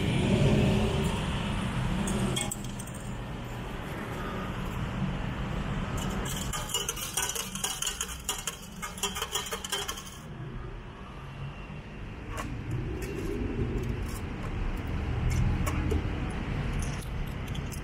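Ticket vending machine dispensing change: a rapid clatter of coins dropping into its metal tray lasts about four seconds, starting some six seconds in, followed by a few scattered clinks. A low rumble runs underneath.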